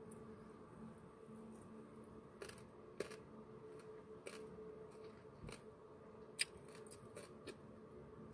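Faint eating sounds of fried chicken being pulled apart and chewed, with wooden chopsticks handled, as a few scattered soft clicks and crackles. The sharpest click comes about six seconds in. Under them runs a low steady hum.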